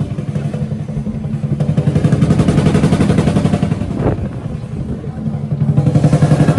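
Lion dance drum and cymbals playing a fast, driving roll. It eases a little in the middle and builds again near the end.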